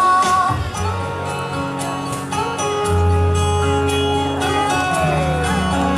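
Recorded Mandarin pop song playing an instrumental passage with no singing: plucked guitar-like notes over held bass notes and a light steady beat.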